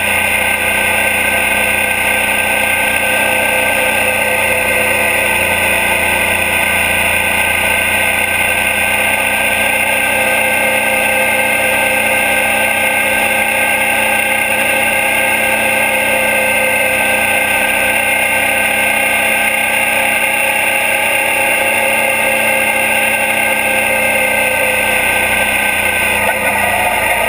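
2012 Suzuki DL650 V-Strom's 645 cc V-twin engine running steadily at cruising speed, heard close up from the engine guard, over wind and road noise. The engine note shifts slightly near the end.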